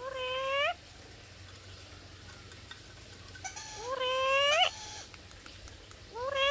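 Black-capped lory (Lorius lory) giving three loud, drawn-out calls, each under a second long and sweeping upward in pitch at the end. The last begins near the end.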